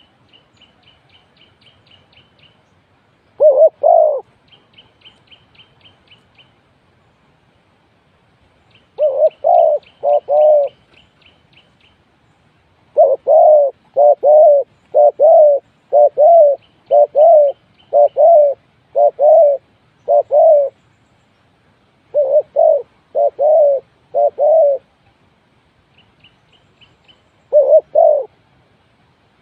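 Spotted dove cooing loudly in repeated phrases of two to several deep notes, with the longest run in the middle. A small bird's faint, rapid high twitter sounds in short bursts in between.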